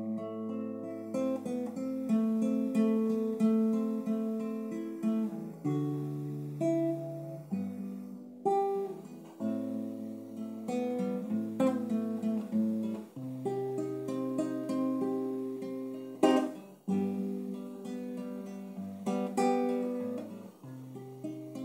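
Nylon-string classical guitar played solo, plucked notes ringing over changing bass notes, with one louder strummed chord about three-quarters of the way through.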